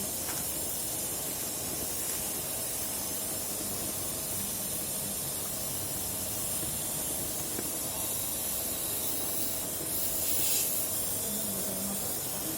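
Steady hissing noise, with a louder, brighter hiss about ten seconds in.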